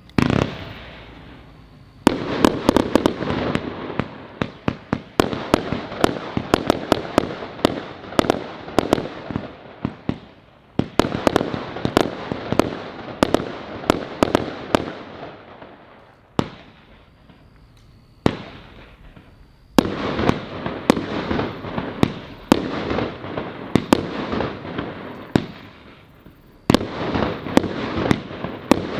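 A 239-shot 1.3G firework battery firing: shots and bursts come in fast runs lasting several seconds, broken by short pauses and a few single shots, so the tempo keeps changing.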